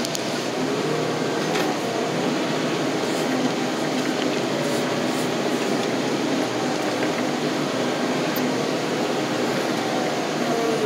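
A fork-equipped loader's engine running steadily, heard from the operator's seat, with a faint whine that wavers up and down in pitch.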